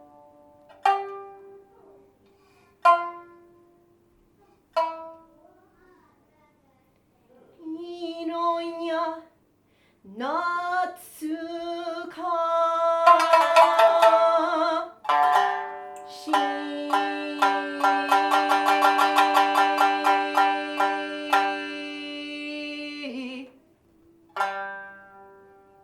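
Music on a plucked string instrument: single notes plucked and left to ring out, a rising slide in pitch about ten seconds in, then a long passage of fast repeated strokes, and one last plucked note near the end.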